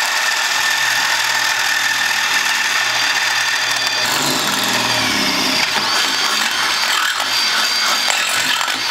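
Power drill boring through a stainless steel bracket, opening the hole from 1/4 to 5/16 inch with WD-40 as cutting fluid. The drill runs steadily under load, and about four seconds in its pitch drops and wavers as the load on the bit changes.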